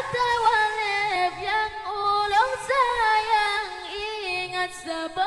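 A boy singing a nasyid solo into a microphone: a slow, ornamented vocal line with long held notes that waver and slide between pitches.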